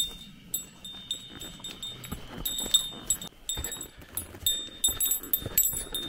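A small metal bell carried by a walker, jingling irregularly several times a second with each step, over footsteps and scuffing on a steep slope.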